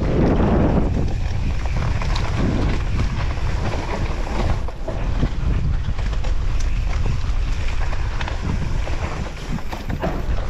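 Wind buffeting the microphone over the rattle and knocks of a downhill mountain bike riding a rough track.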